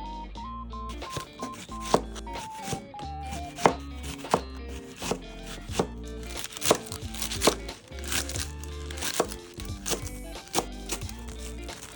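Knife cutting vegetables on a cutting board, sharp strikes about one or two a second, over light background music.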